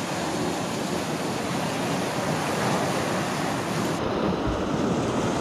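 Surf washing in over the rocks and pebbles of a rocky shore: a steady rush of waves, with wind on the microphone and one short low wind buffet near the end.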